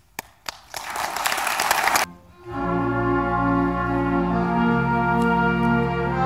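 Two single claps, then brief audience applause that cuts off abruptly about two seconds in. About half a second later a school concert band of woodwinds and brass comes in with full, held chords.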